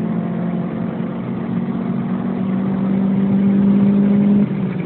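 2003 Honda Accord's K24 four-cylinder engine, fitted with an aftermarket intake, headers and Magnaflow exhaust, pulling hard under acceleration as heard from inside the cabin. The engine note climbs steadily in pitch and gets louder, then drops sharply about four and a half seconds in.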